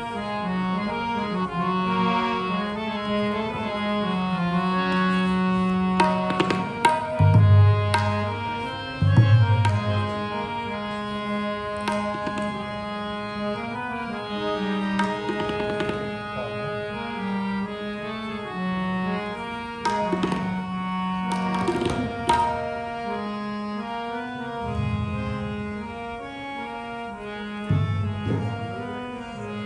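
Harmonium and tabla playing together. The harmonium holds sustained notes and chords, and the tabla keeps a beat of sharp strokes. Deep bass-drum notes from the tabla's bass drum come in a few times, about a third of the way in and again near the end.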